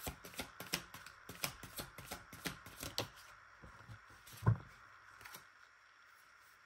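Tarot cards being shuffled and flicked through in the hands: a quick run of light card clicks. About four and a half seconds in comes a single soft thump on the table.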